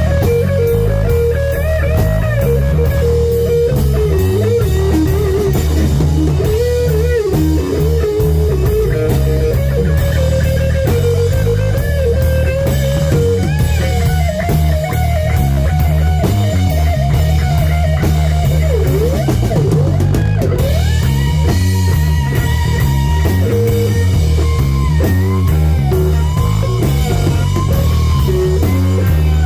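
Live rock band with amplified electric guitar, electric bass and drum kit. A Stratocaster-style electric guitar plays a lead line with bent, sliding notes over a steady bass and drum groove.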